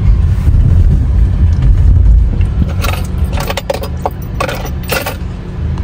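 Steady low rumble of a car heard from inside the cabin, with a run of light clicking and rattling from about three to five seconds in as a toddler handles things at the centre console.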